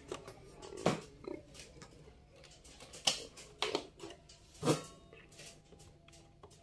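Several short clicks and knocks of a power cable being plugged into a dbx 260 loudspeaker management unit and the unit being handled.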